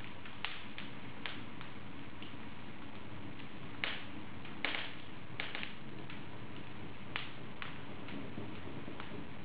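Wood fire burning in an open fireplace: a steady low rustle of flames with scattered sharp crackles and pops, two louder pops about four and five seconds in.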